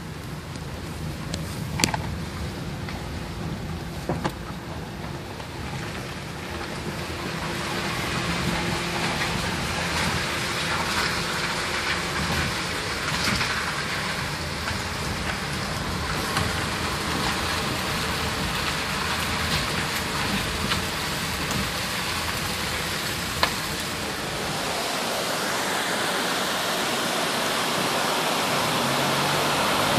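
Car rolling slowly over a wet dirt and gravel road: a steady hiss of tyres on the wet surface over a low rumble, with a few knocks. Late on the low rumble fades and the rush of a creek running close beside the road grows louder.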